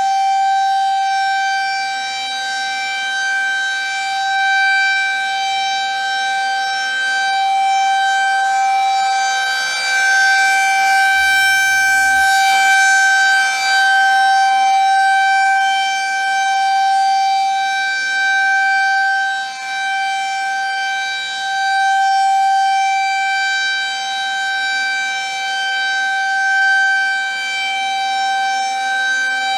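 Federal Signal 2001 rotating electromechanical tornado siren sounding a steady alert tone at one constant pitch, its loudness swelling and fading every few seconds as it turns. This is the monthly test of the outdoor warning siren.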